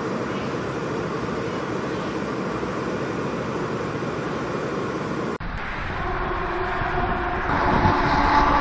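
San Francisco cable car powerhouse machinery, the big sheave wheels winding the moving haul cables, giving a steady, dense mechanical din with a faint hum. About five seconds in it cuts to car tyres crossing a steel grate bridge deck, a spooky, ghostly drone of several held pitches that swells louder.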